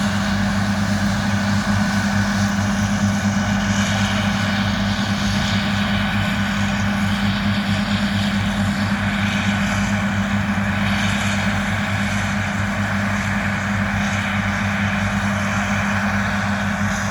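Farm machine's engine running steadily under load, a constant low drone that stays even throughout.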